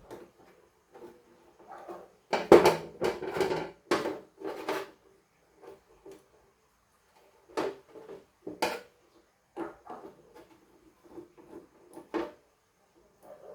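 Irregular clicks, knocks and light clatter from hard parts being handled during a power supply swap, thickest in a cluster a few seconds in, then scattered single knocks.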